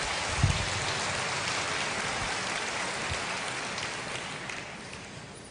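Audience applauding in a hall, the clapping fading out near the end.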